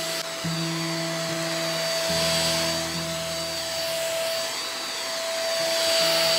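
Kurumi corded handheld mattress vacuum running steadily as it is moved over a mattress: a constant motor whine over the rushing hiss of suction, swelling slightly near the end.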